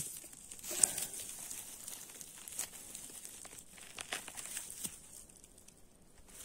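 Dry grass, fir needles and twigs rustling and crackling as a hand parts them and pulls up a porcino mushroom, with a sharp crack just under a second in and a few more snaps later.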